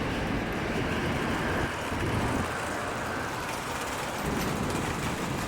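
Small polyurethane rollerblade-type wheels on a folded Brompton bicycle rolling across a smooth, polished supermarket floor: a steady rolling rumble.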